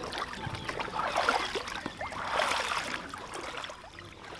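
Water sloshing and streaming off a carp sling lifted out of the lake, with splashing from legs wading through shallow water. Two louder surges, about a second in and again about two and a half seconds in.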